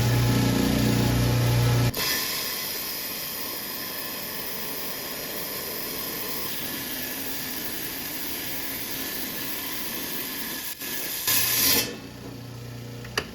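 10-inch Hi-tech Diamond lapidary slab saw cutting into an agate: a steady motor hum for the first couple of seconds, then an even hiss of the diamond blade going through the stone. The hum comes back briefly, louder, near the end before the sound drops away.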